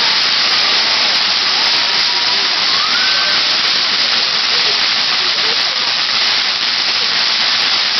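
Ground fountain firework spraying sparks with a loud, steady hiss.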